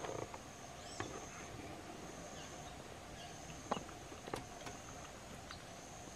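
A few short soft knocks, about a second in and twice near four seconds, as a baby capuchin monkey's hands meet a mirror, over a faint steady high whine in the background.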